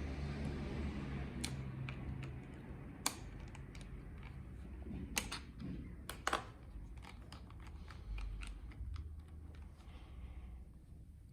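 A laptop being handled: a few sharp plastic clicks a second or two apart over low rustling handling noise, dying down near the end.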